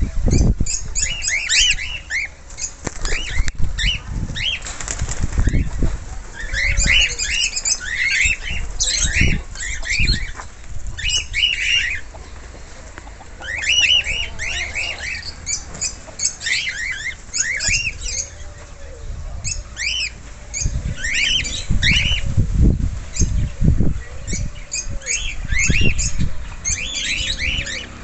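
A flock of cockatiels chattering, with many short, overlapping high chirps throughout and low rumbling bursts underneath.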